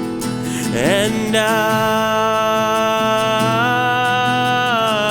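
A solo singer holding one long note over acoustic guitar: the voice slides up about a second in, holds, and steps up slightly near the end, with the guitar ringing steadily underneath.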